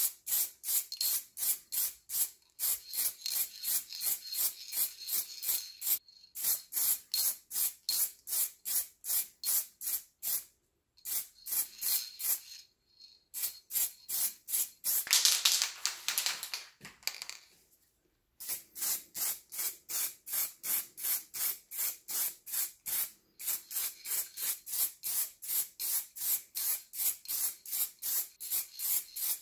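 Aerosol spray-paint can being shaken, its mixing ball rattling in runs of quick strokes, about three or four a second, with short pauses between runs. In the middle there is a steady spray hiss for about two seconds.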